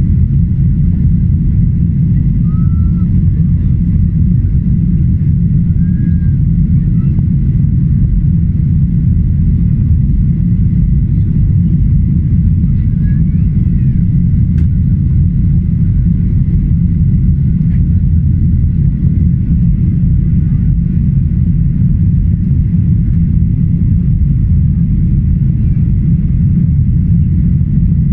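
Steady low rumble of a Boeing 737-800's CFM56-7B jet engines and rushing air, heard inside the cabin over the wing shortly after takeoff, with a faint steady high tone.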